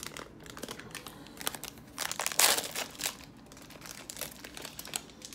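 Plastic wrapper of a 2019 Donruss baseball card pack crinkling as it is pulled and torn open, a string of crackles with the loudest, longest rip about two and a half seconds in.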